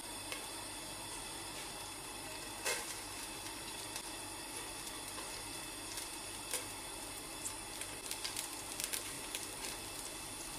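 Grated carrot going into hot oil in a stainless steel pot, giving a cluster of light crackles and sizzles about eight seconds in, over a faint steady hiss. A couple of single clicks come earlier.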